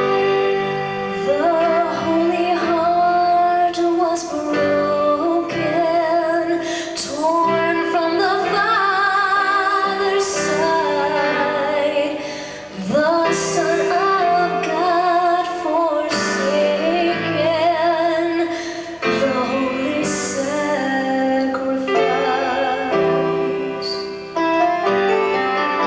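A woman singing with vibrato over a keyboard accompaniment of held chords, her phrases breaking briefly about halfway through and again near the end.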